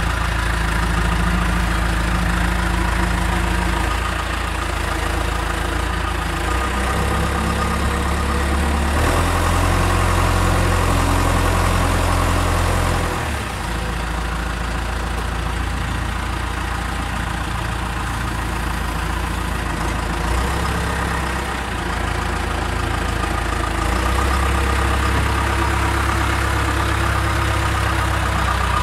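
Backhoe loader's diesel engine running steadily, its pitch and load shifting up and down every few seconds as the machine is worked.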